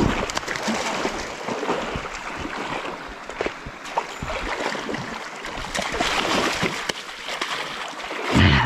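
Stream water running over rocks, broken by irregular splashing as a large hooked trout is fought in the current.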